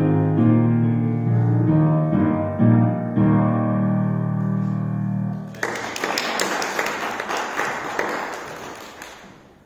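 Piano accompaniment ending on held low chords, then, about five and a half seconds in, applause breaks out and fades away toward the end.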